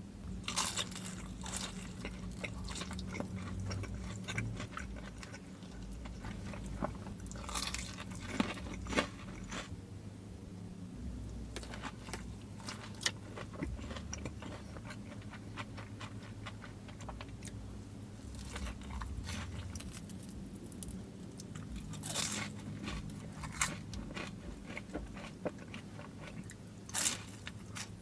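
Close-miked eating: crunching bites into crispy fried chicken and chewing, with clusters of sharp crackles every few seconds over a steady low hum.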